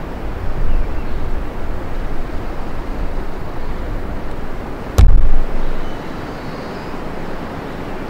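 Wind gusting through a forest, with a heavy low rumble of wind on the microphone that is strongest in the first few seconds. About five seconds in comes a single sudden loud thump, the loudest moment, which dies away within about a second.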